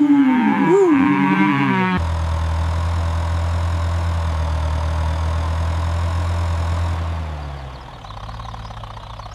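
For about two seconds there are gliding, pitched calls. Then a steady low motor-like hum starts suddenly and runs for about five seconds before fading away near the end.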